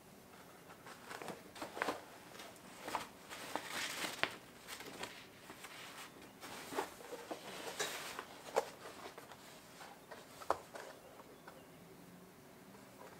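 Rustling of a non-woven fabric shopping bag being opened and handled, with scattered sharp taps and knocks as a cardboard Funko Pop box with a plastic window is lifted out of it.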